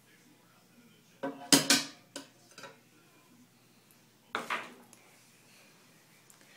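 Hard objects clattering and knocking together as they are handled, in a loud cluster about a second in with a couple of lighter knocks after it, and a second cluster about four seconds in.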